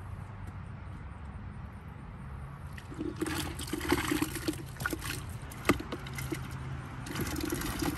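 Water splashing as a small hooked fish is pulled through the surface and lifted out, starting about three seconds in, with scattered sharp clicks and one louder click a little after the middle.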